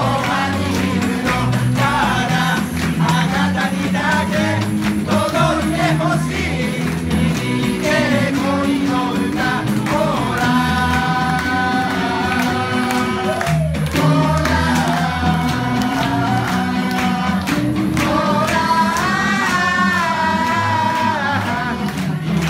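A group of high-school girls singing a pop song in harmony over a steady low bass line, with hands clapping along to the beat.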